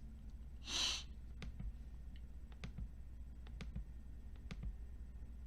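Sparse computer mouse clicks, one or two a second, over a low steady hum, with a short hiss just under a second in that is the loudest sound.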